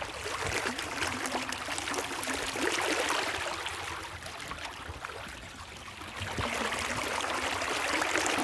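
Creek water babbling and trickling over rocks: a steady rushing that eases a little around the middle and then swells again.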